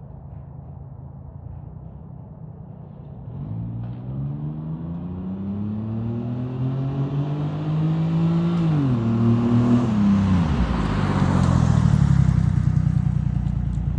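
Honda Acty kei truck's engine, fitted with a new aftermarket muffler, pulling up steadily in pitch for several seconds. The pitch drops about two-thirds of the way through and again shortly after, then a rising rush of noise builds toward the end.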